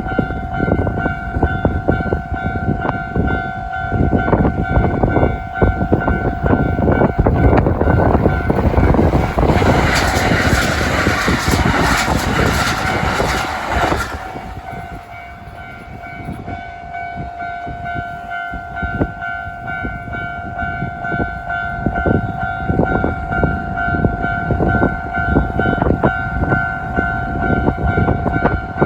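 Japanese level-crossing alarm ringing its steady, repeated electronic ding while a Kintetsu train passes over the crossing about ten seconds in. For about four seconds the train's wheels and rushing noise drown out the bell, which then keeps ringing.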